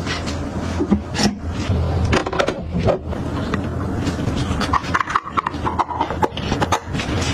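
Rubbing, scraping and light irregular taps of gloved hands handling a lime half and a silicone fruit-saver pod on a plastic cutting board.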